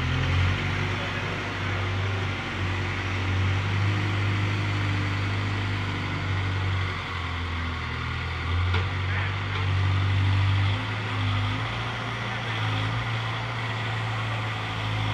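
Diesel engine of a heavy construction machine running, its low drone stepping up and down in pitch every second or two as the load and throttle change.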